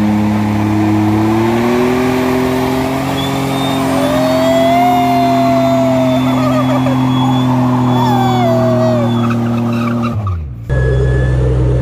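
Isuzu Trooper doing a burnout: the engine is held at high revs while a spinning tyre squeals, the squeal wavering up and down in pitch. Near the end the engine note falls away and the sound breaks off briefly.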